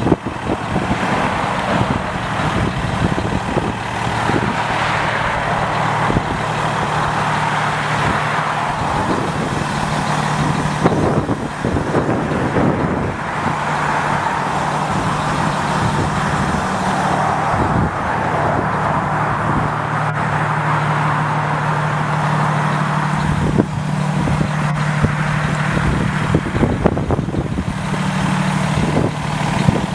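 Freightliner M2 SportChassis hauler's diesel engine running steadily, a constant low hum with a broad rush over it and a few light knocks near the middle.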